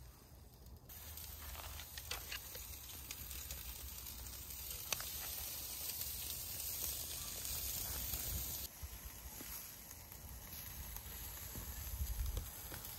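Pork sizzling on a charcoal grill, a steady hiss with a few small pops.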